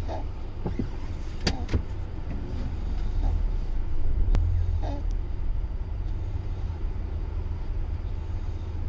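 Steady low rumble of a car's cabin while driving on the road, with a few sharp clicks: two in quick succession about a second and a half in, and one about four seconds in.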